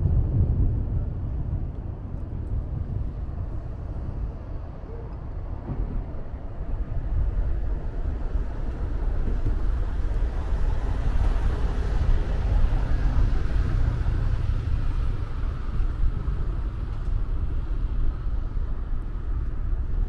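Wind rumbling on the microphone over a steady wash of distant city noise, which swells a little about halfway through.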